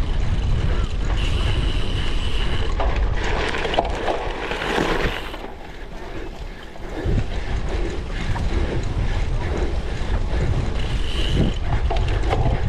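Wind buffeting a microphone over the rattle of a cyclocross bike ridden over rough ground, with a brief high whine twice.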